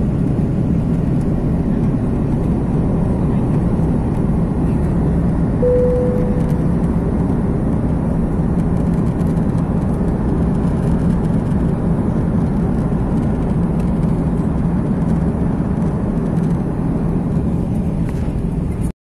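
Airbus airliner's jet engines at takeoff power, heard inside the passenger cabin: a loud, steady rumble with a low hum as the plane climbs out. A brief tone sounds about six seconds in.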